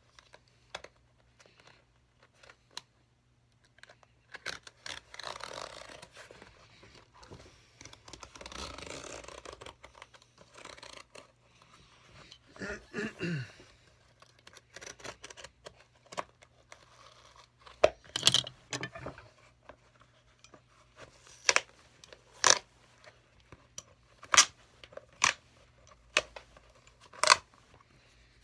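Leather sole of a John Lobb loafer being pried and torn away from the shoe, the glued bond ripping in long rough stretches, with a short creak falling in pitch partway through. Later comes a string of sharp clicks and snaps, roughly a second apart.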